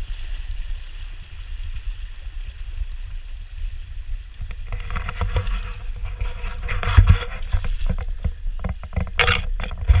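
Shallow river water rushing and splashing around a person's legs as he wades, with a low rumble on the microphone. About halfway through, footsteps begin crunching on gravel and scraping through dry brush, with a few sharper crunches near the end.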